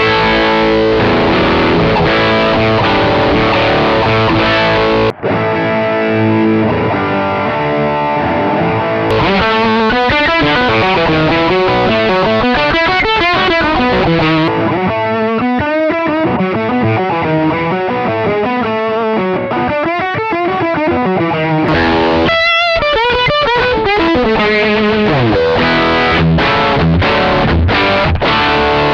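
Electric guitar with Gibson Burstbucker pickups, played distorted through a Marshall Silver Jubilee 2555 tone, from the real 1987 amp and from the Axe-FX III's Brit Silver model. It plays a riff and lead lines with bent and wavering notes, and breaks off briefly about five seconds in.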